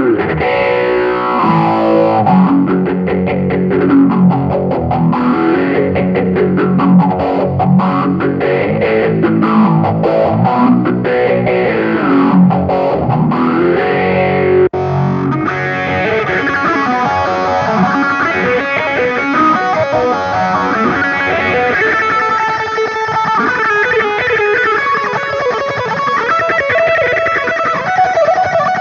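Electric guitar played through an M-VAVE Tank-G multi-effects pedal on a driven, distorted preset, in fast runs of notes that climb and fall. About halfway through, the sound cuts out for an instant and the guitar continues on a different, brighter preset.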